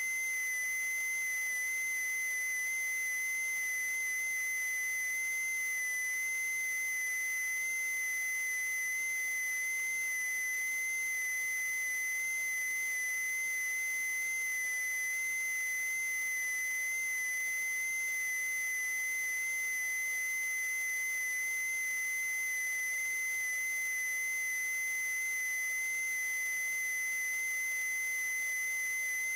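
A steady, unchanging high-pitched electronic tone with faint higher overtones, over a light hiss.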